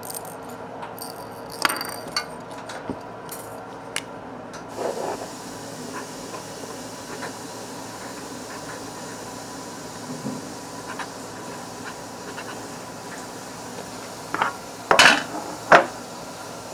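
Scattered light clicks and taps of small hard objects being handled, over a steady faint hiss, with a quick run of louder clicks near the end.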